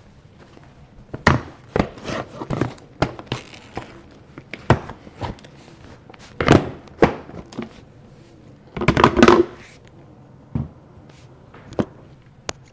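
Irregular plastic knocks and clicks as a Eureka Maxima upright vacuum's clear dust cup is handled and taken off, with a short, louder clattering rattle about nine seconds in. Footsteps in flip-flops on tile come in among them.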